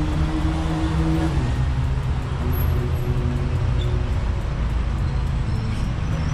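Steady road-traffic noise with a heavy wind rumble on the microphone of a moving bicycle. An engine hum from a passing vehicle fades out a little over a second in.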